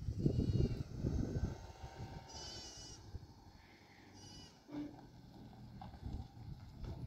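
Livestock bleating several times, high and quavering, the loudest bleat about two and a half seconds in. Low rumbling noise fills the first second and a half.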